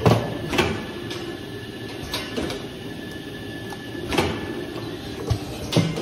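Cream jar hot-filling and capping machine running with its conveyor: a steady mechanical hum broken by irregular knocks and clicks as plastic jars and caps are handled and the machine cycles.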